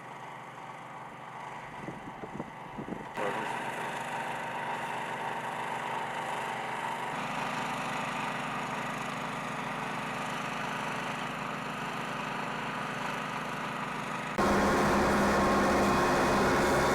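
Steady engine or machinery noise in several abruptly cut segments, each louder than the one before. The last segment is much louder and carries a few steady tones.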